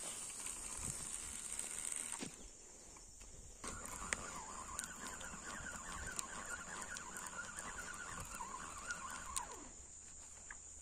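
Spinning reel being cranked to wind in the line with a hooked fish on, a faint whirring that starts about four seconds in and stops near the end.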